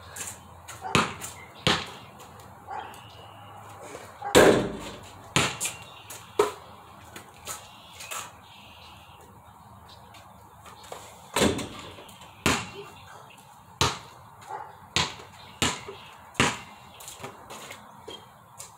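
Basketball bouncing hard and striking the hoop in a series of sharp, separate bangs, the loudest about four seconds in, with the bounces coming about once a second in the second half.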